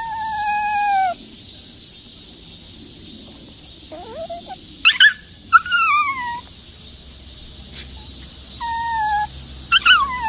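A small animal calling repeatedly: about four drawn-out high calls that dip in pitch at the end, with short sharp upward chirps between them.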